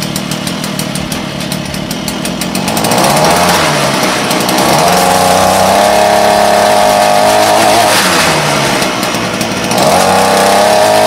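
Small two-stroke brush-cutter engine on a homemade go-kart running at idle, then revved up about three seconds in and held high. It drops back toward idle near eight seconds and is revved up again near the end.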